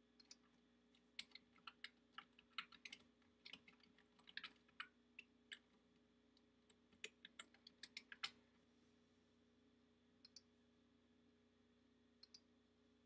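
Faint computer-keyboard typing in quick, irregular runs of keystrokes, stopping about 8 seconds in; two short pairs of clicks follow near the end.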